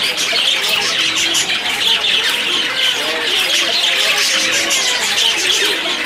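A flock of house sparrows chirping and chattering without pause, many short calls overlapping.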